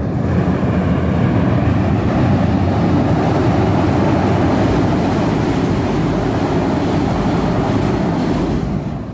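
Train passing close by on the railway line overhead: a loud, steady rumble that fades near the end.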